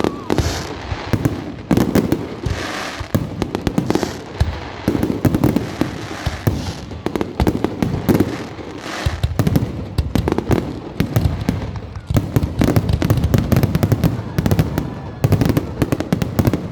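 Fireworks going off in a rapid, continuous barrage of bangs and crackles, with a few short lulls.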